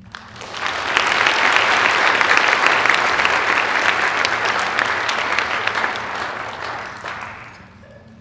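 Audience applauding, many hands clapping. It builds up within the first second, holds steady, then dies away over the last two seconds or so.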